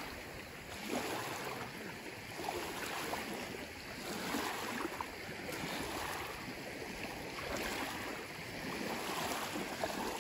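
Shallow lake water sloshing and splashing around people wading through it, a steady watery rush that swells and eases every second or so.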